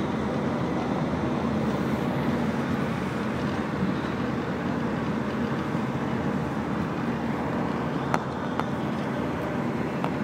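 Steady road and engine noise of a moving car, heard from inside, with two short clicks about eight seconds in.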